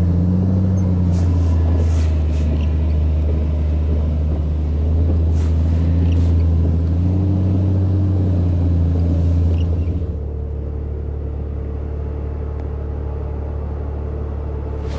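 Off-road 4x4's engine running as it drives through snow, its low drone rising and falling with the throttle and a few faint knocks. About ten seconds in it settles into a quieter, steady, even drone.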